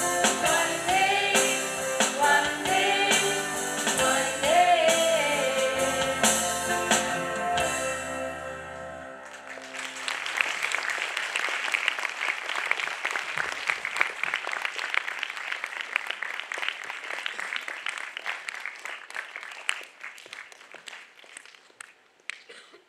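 A student choir singing with piano and drums, the song ending about nine seconds in, followed by audience applause that fades out near the end.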